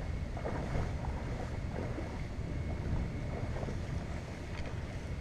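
Shallow stream water running and swishing around two hand nets being worked in it, with a few faint small splashes. Low wind rumble on the microphone.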